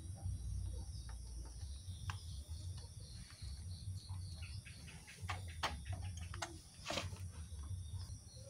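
Quiet outdoor background with faint, rhythmic chirping of insects, and a few light clicks and knocks of tools being handled in the second half.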